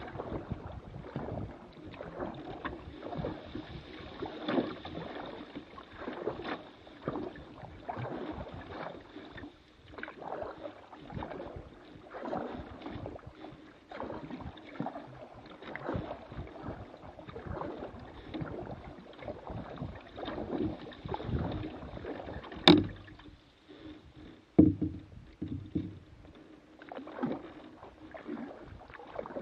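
Canoe being paddled: water swishing and splashing with each stroke, about one every second or two. Two sharp knocks come about two-thirds of the way through.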